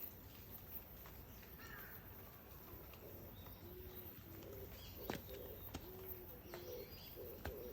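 A dove cooing faintly: a run of short, low, steady notes that begins about halfway through, with a couple of sharp clicks among them.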